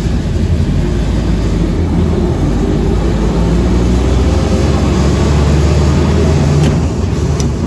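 WW2 DUKW amphibious truck's GMC straight-six petrol engine running steadily, heard from the open driver's cab.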